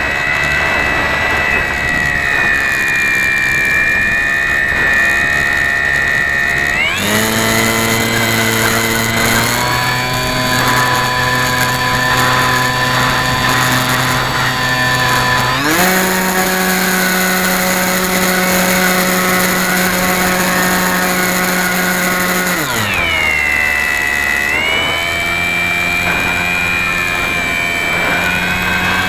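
Motor and propeller of an FPV model airplane heard through its onboard camera, running with a steady whine that steps up in pitch as the throttle is opened about seven seconds in and again near sixteen seconds, then drops back around twenty-three seconds.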